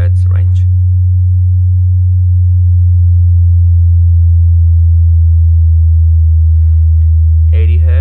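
AVE Revo 15 powered speaker's 15-inch woofer playing a slow downward frequency sweep: a loud, deep, steady sine tone a little below 100 Hz, sinking very slowly in pitch. A man's voice is heard briefly at the start and just before the end.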